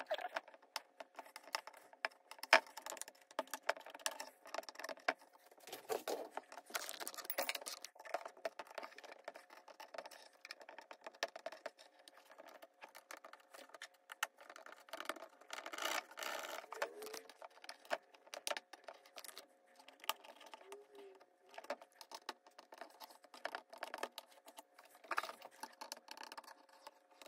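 Plastic spudger scraping and picking old display adhesive off the rim of an iMac's case: a faint, irregular run of small clicks, scratches and peeling sounds.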